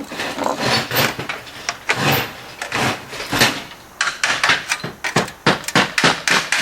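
Copper apron flashing being worked down tight against a brick chimney: scraping and rustling of the sheet metal, then a quick run of sharp taps on it in the second half.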